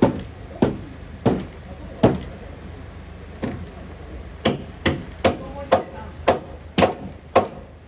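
Wooden mallet striking timber to drive a traditional Japanese wood joint together without nails or screws: a series of about a dozen solid thumps, spaced out at first, then coming about twice a second in the second half.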